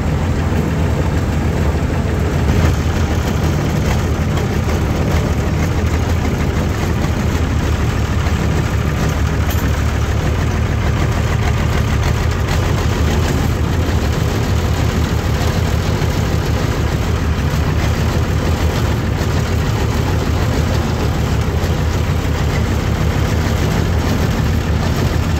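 A heavy engine running steadily in an enclosed shed.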